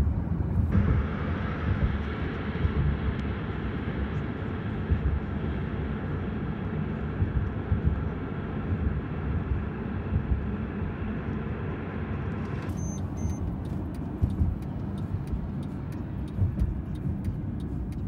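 Car travelling at highway speed: steady tyre and wind noise. About thirteen seconds in, the higher hiss drops away and a run of sharp ticks and clicks sets in over the rumble.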